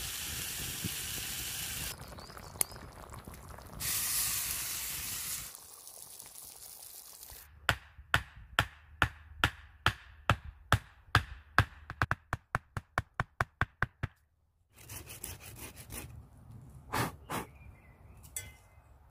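Food sizzling in a hot pan, a loud hiss that stops and starts again, followed by a run of sharp knife chops on a wooden board, about three to four a second and quickening.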